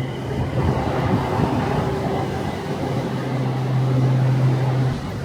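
A vehicle running with a steady low hum and road or motor noise. The hum grows stronger in the second half and stops suddenly near the end.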